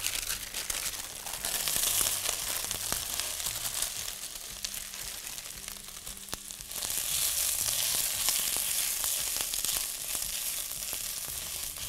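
Roasted diced vegetables sizzling as they hit hot olive oil and tomato paste in a pot and are stirred with a spatula. The sizzle eases a little around the middle and picks up again about halfway through.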